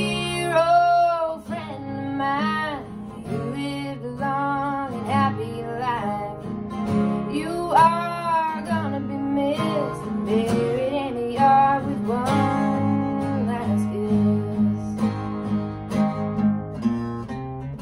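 Two acoustic guitars strummed together while a woman sings the melody.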